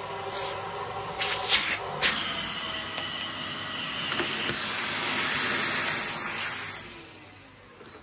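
Dyson DC15 ball upright vacuum running with a steady hissing whine, with a few knocks of handling in the first two seconds. About seven seconds in it is switched off and the motor winds down with a falling whine.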